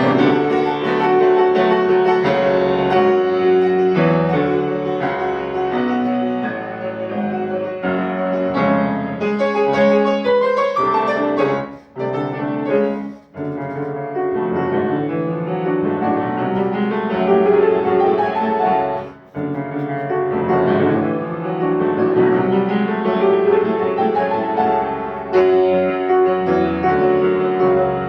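Piano playing a classical ballet passage, moving chords and running figures, with brief breaks about twelve, thirteen and nineteen seconds in.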